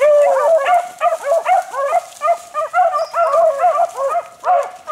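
Beagles baying in quick, overlapping calls, the hound pack giving voice as it runs a rabbit's trail.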